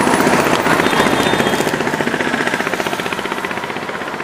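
KTM 250 Adventure's 248.76 cc liquid-cooled single-cylinder engine idling, a rapid, even chain of exhaust pulses that fades a little toward the end.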